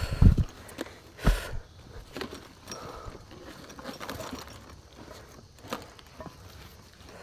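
Footsteps and rustling of a hiker climbing a steep mountain trail, with two heavy thumps in the first second and a half, then scattered light steps and clicks.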